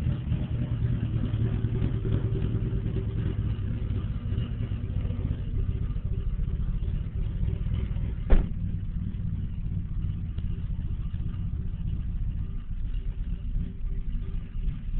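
1994 Dodge Stealth twin-turbo 3.0 L V6 with 272° cams idling through its exhaust, with the uneven lope those cams give. A single sharp knock about eight seconds in.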